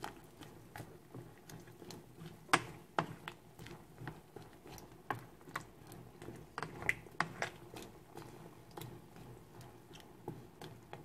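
Spoon stirring chunks of zucchini and onion in a steel pot of water, with irregular light clicks and taps of the spoon against the pot, one sharper knock about two and a half seconds in.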